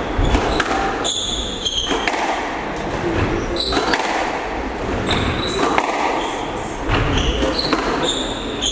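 Squash rally: the ball smacks off rackets and the court walls in sharp hits about a second apart, echoing in the hall, while court shoes give short high squeaks on the hardwood floor.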